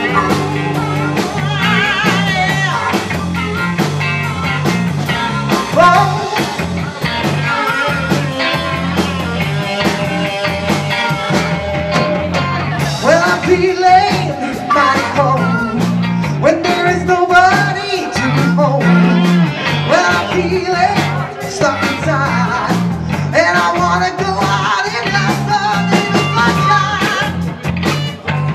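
Live rock band playing a song: vocals over electric guitars, bass guitar and drum kit, with a steady beat.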